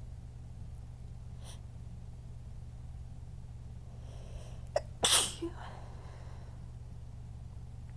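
One strong human sneeze about five seconds in, with a sharp catch of breath just before it, over a steady low background hum.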